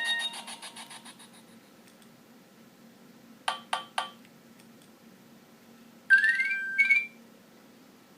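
Nokia 6230i phone tones played one after another. The last notes of a melodic ringtone die away, then a short alert tone of three quick notes plays about three and a half seconds in. About six seconds in comes a second alert tone lasting about a second: a rising sweep that settles on a higher note.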